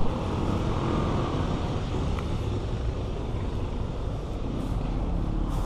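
Racing lawnmower engine running steadily, a low, even rumble.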